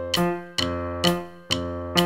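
Background music: a keyboard, piano-like in tone, plays a melody of struck notes that ring and fade, with several new notes in the two seconds.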